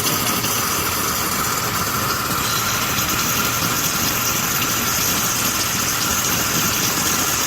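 Self-serve car wash pressure wand spraying water in a steady, even hiss, with the wash's pump running underneath.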